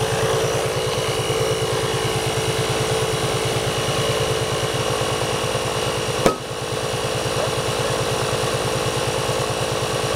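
Portable 12-volt air compressor running, pumping with a rapid even pulsing as it inflates an ATV tire at about 15 psi. About six seconds in, one sharp pop, the tire bead snapping onto the rim, and the compressor keeps running.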